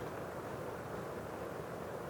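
Steady low rushing noise, even throughout, with no distinct strokes or clicks.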